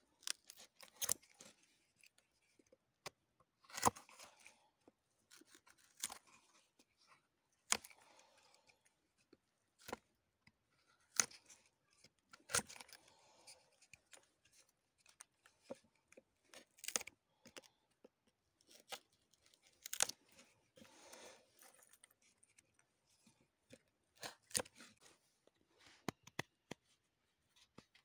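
Knife cutting and shaving dry wood, trimming a small wooden cup cut from a log round: irregular sharp cuts and short scraping strokes, one every second or two.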